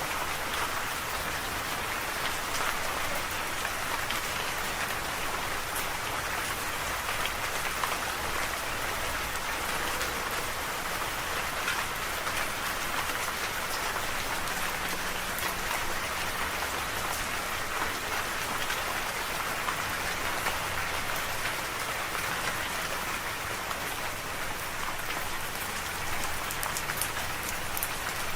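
Steady rain falling, an even hiss with many fine drop patters spread through it.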